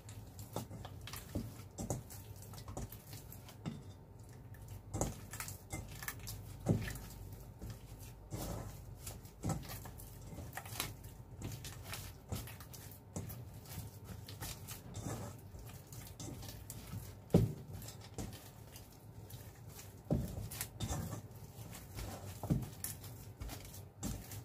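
Bread dough being kneaded by hand in a stainless steel bowl: soft squishing and irregular knocks of hand and dough against the bowl, one every second or two, the loudest about two-thirds of the way through. A faint steady hum runs underneath.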